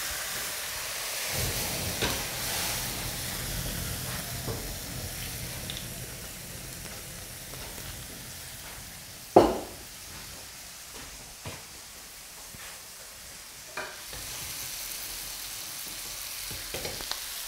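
Steaks, vegetables and butter sizzling in a hot pan being flambéed with Pernod; a low rumble of burning flames joins the sizzle about a second in and dies away about halfway through. Sharp knocks of metal on the pan, the loudest about halfway.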